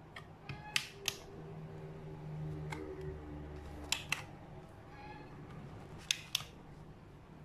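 Three pairs of sharp clicks, the two clicks in each pair about a third of a second apart, as battery push-button LED puck lights are pressed on under a shelf. A cat meows faintly near the middle.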